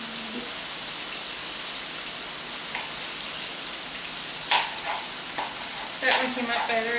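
Ground beef and corn frying in a skillet over a gas burner: a steady sizzle, with one brief sharp click about four and a half seconds in.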